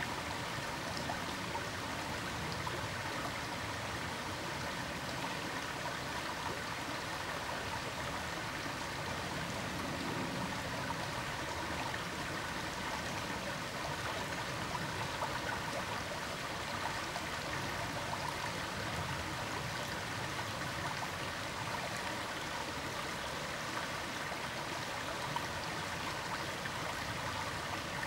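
Steady rushing of running water, like a small stream, unchanging throughout.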